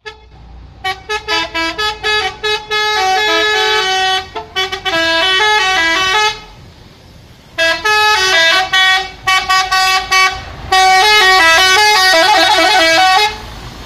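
Multi-tone 'telolet' musical horn on a concrete mixer truck playing a melody of stepped notes, short toots at first and then held notes. It plays in two runs with a break of about a second and a half around the middle.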